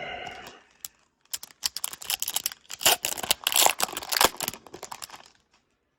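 Hockey trading cards and their packaging being handled: a run of quick crinkles, clicks and papery rustles for about four seconds, stopping shortly before the end.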